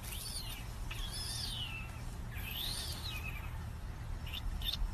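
Three high whistled calls, each rising and then falling, like a bird calling, over a steady low rumble. A few faint clicks come near the end.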